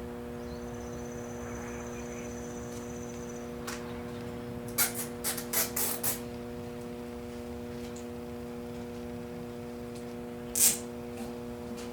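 Steady low electrical hum, with a quick run of sharp plastic clicks about five seconds in and another click near the end, from zip ties being handled and pulled tight around go-kart wiring.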